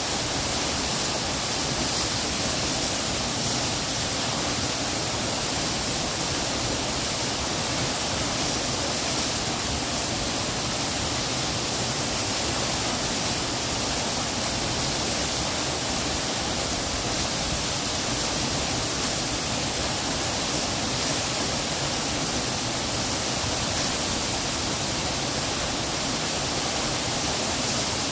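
Waterfall and rocky stream rapids: a steady, unbroken rush of water pouring over boulders.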